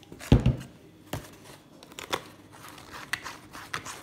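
Slime activated with laundry detergent being worked by hand, giving sticky clicks and crackles, with a heavy bump about a third of a second in.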